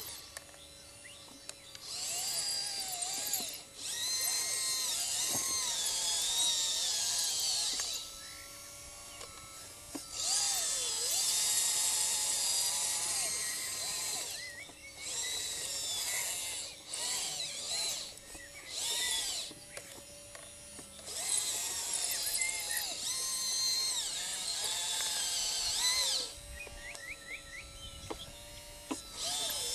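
Electric drive motors and hydraulic pump of a radio-controlled scale Liebherr LR632 track loader whining in spurts, the pitch rising and falling as the machine drives and works its bucket.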